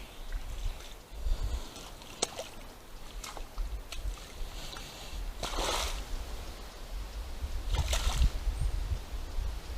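Water and mud splashing in a forest wallow, with two louder splashes about five and a half and eight seconds in, over a low rumble and a few sharp clicks.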